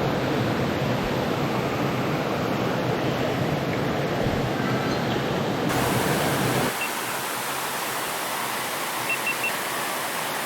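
Steady rushing of a small waterfall and creek. About seven seconds in, the deep rumble drops away and the water sounds thinner and a little quieter.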